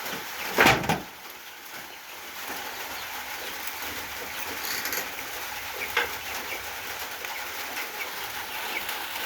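Chickens clucking and calling softly over a steady outdoor hiss, with a brief loud noisy burst a little over half a second in.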